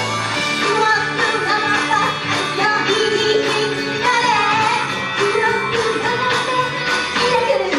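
Female voices singing an upbeat anime pop song into handheld microphones over a loud backing track with a steady beat.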